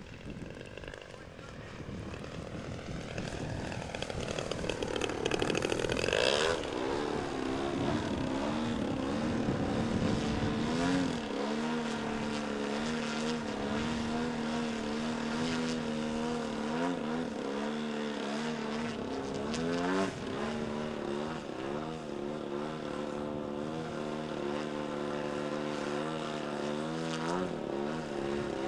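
Radio-control model airplane's engine and propeller flying by. The pitch rises to a peak about six seconds in and then drops as the plane passes. After that it holds a steady tone with slight changes in pitch as the throttle moves.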